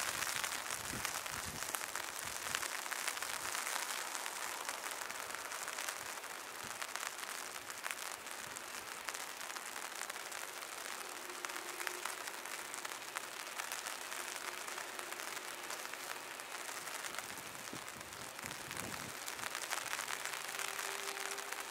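Heavy rain falling: a steady hiss thick with the ticks of individual drops.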